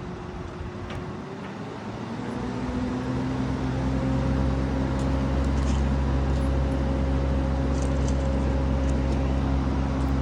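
Crane engine running, speeding up about two seconds in and then holding at a steady, louder pitch with a low hum, as it powers the lift.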